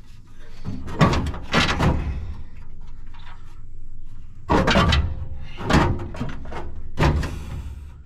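Metal clunks and scrapes as an old radiator is worked loose and lifted out of a 1979 Ford F-150's engine bay. There are several sharp knocks: a cluster about a second in, then three more between four and a half and seven seconds in.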